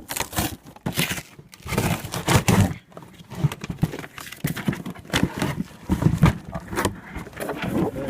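Paper and cardboard crinkling and rustling, with irregular knocks from handling a box.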